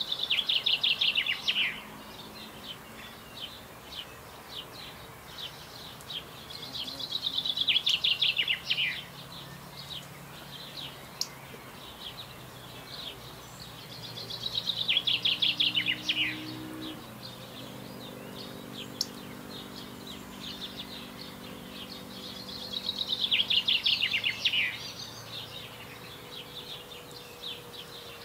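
A songbird singing a fast trilled phrase about two seconds long that falls in pitch. The phrase comes four times, about every seven to eight seconds, over a faint low hum.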